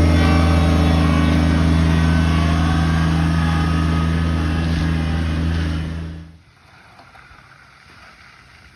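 An engine or motor running steadily with a deep hum, then shutting off about six seconds in, leaving only faint background noise.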